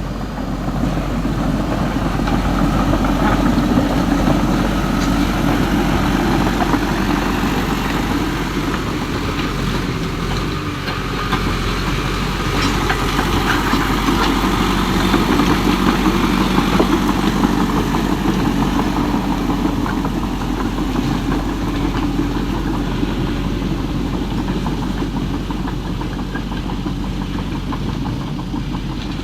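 An engine-like running sound of construction machinery, a steady low rumble that swells slightly now and then.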